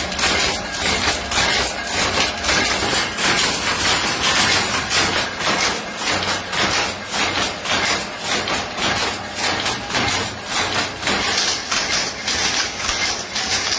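Textile power looms clattering rhythmically as they weave, a steady fast run of sharp knocks, a few a second.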